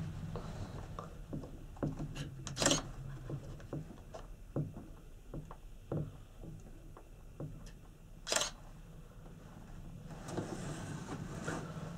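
Inside a Panoramic Mont Blanc gondola cabin riding the rope: scattered creaks and clicks from the swaying cabin and handheld camera, with two sharper knocks about three and eight seconds in. A low hum fades after the start and returns near the end.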